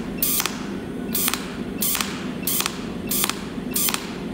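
Cold welding machine arc firing in short repeated spots from its tungsten electrode on 2.0 mm steel plate while laying a butt weld down the seam. Each spot is a brief crackling burst, about one every two-thirds of a second, six in all.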